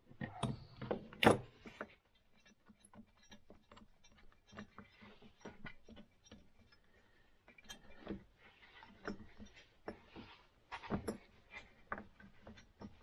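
Metal clinks and knocks, with some light scraping, as hands work loose and handle parts at the flywheel end of a vintage Rotax snowmobile engine. The loudest knocks come in the first second or so, then scattered clicks, with a few more knocks near the end.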